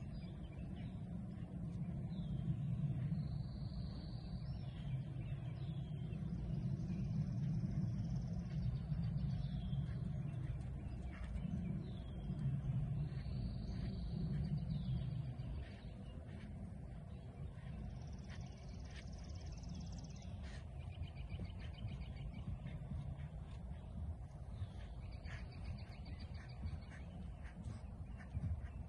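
Outdoor ambience: birds calling briefly every few seconds over a low rumble of wind on the microphone, which eases about halfway through. There are a few faint knocks in the second half.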